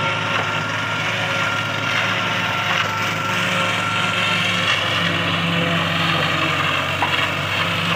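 Tractor engine running steadily under load, driving a forage chopper that is cutting green maize stalks and blowing the chopped silage out through its spout: a dense, continuous machine whir with a thin steady whine above it.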